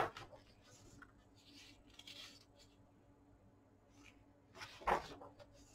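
Pages of a large hardbound book being turned by hand: soft paper rustles, then a louder single page flip near the end.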